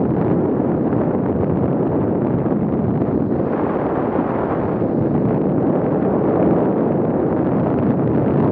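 Steady wind buffeting the microphone of a bicycle-mounted action camera as the bike rolls downhill at about 28 mph, a dense rush with no distinct events and a slightly brighter patch a few seconds in.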